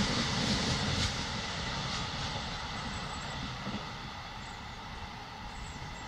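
Freight train of empty box wagons receding along the line, the rumble of wagon wheels on the rails fading steadily as it draws away.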